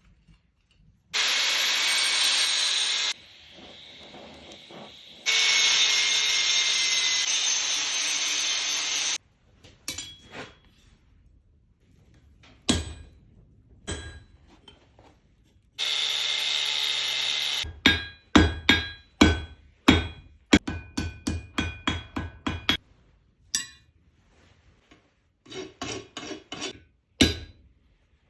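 Metalworking on steel: three bursts of a power tool running against the metal, each lasting a few seconds and stopping abruptly, then hammer blows on steel at about three a second, each strike ringing.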